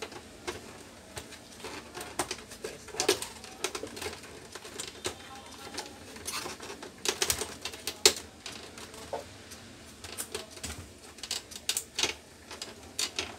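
Irregular clicks, taps and knocks of plastic parts being handled and worked loose inside an open Epson L1300 inkjet printer, with the sharpest knocks around three, seven to eight and twelve seconds in.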